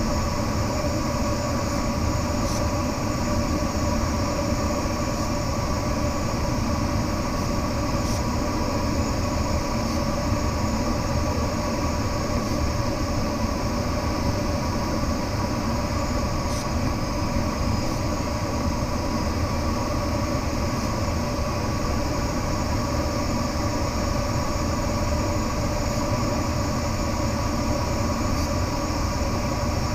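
Steady rush of airflow in a glider cockpit in flight, a constant rumbling noise with a few faint steady tones through it.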